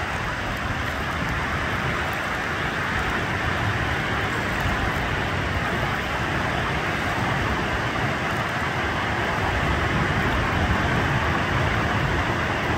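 Waves breaking on a Lake Superior beach: a steady rushing noise with slight swells in loudness.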